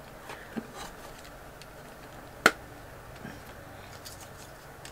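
Quiet handling of a plastic makeup palette case: a few light ticks, then one sharp click about halfway through.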